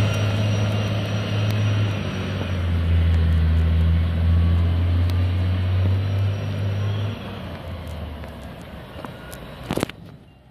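2007 Orion VII diesel-electric hybrid city bus pulling away, its steady low drone fading after about seven seconds as it moves off. A sharp click comes near the end.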